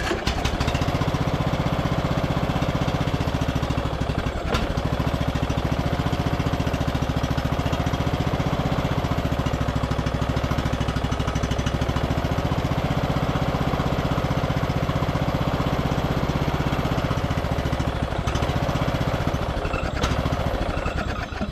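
Bolens riding mower's engine running steadily at idle on two-stroke mix dribbled by hand into the intake, its fuel tank dry. It runs evenly with no knocks or odd noises, which the owner takes for a healthy engine.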